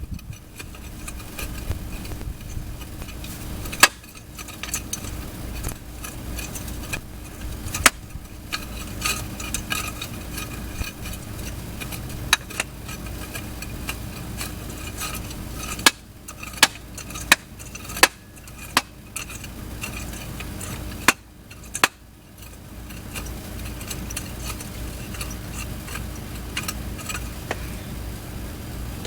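Metal clinks and sharp knocks from hand tools and parts being handled, a dozen or so scattered strikes with a quick run of them past the middle, over a steady low hum.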